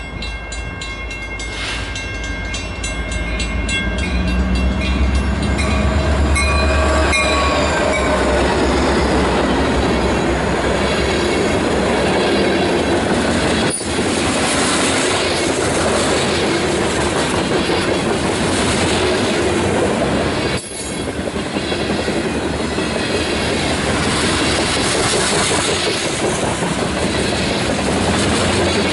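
Freight train passing close by: the diesel locomotives rumble as they go past in the first several seconds, then a long string of covered hopper cars rolls by with steady wheel-and-rail clatter. The sound dips briefly twice, at about 14 and 21 seconds.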